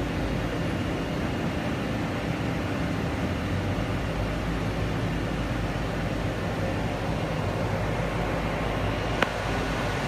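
CNC vertical turning center running behind its enclosure: a steady machine hum with several low tones under a hiss. One sharp click about nine seconds in.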